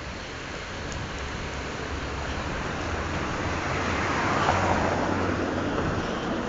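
Street traffic noise, swelling about four seconds in and easing off again, as a vehicle goes by.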